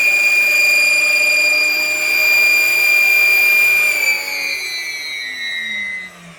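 Dyson DC41 vacuum cleaner motor running with a loud, high-pitched screaming whine. About four seconds in, the whine falls in pitch and fades as the motor winds down. The owner traces the screaming to a clogged, dirty filter.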